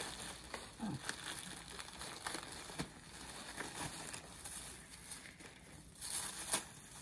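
A thin clear plastic packaging bag crinkling as it is handled and an item is pulled out of it. It makes irregular crackles, with a louder flurry near the end.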